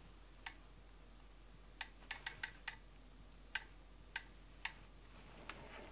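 Faint, sharp light clicks at irregular intervals, about ten in all, with a quick run of several around two seconds in.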